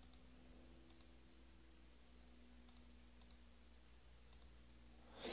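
Near silence: room tone with a faint steady hum and a handful of faint, light clicks spread through it, then a brief louder noise at the very end.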